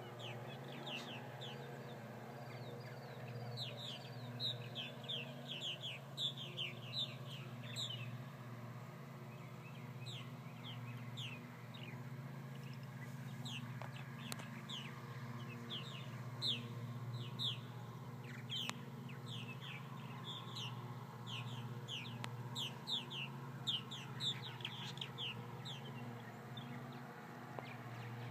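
A flock of purple martins calling in flight: many quick, falling chirps in overlapping chatter, over a steady low hum.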